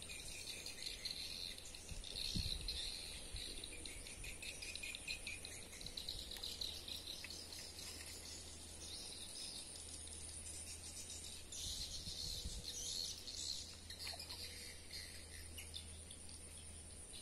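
Insects chirring in a pulsing, rattling trill, over a steady high-pitched hum. A few soft low thumps come in a few seconds in and again about twelve seconds in.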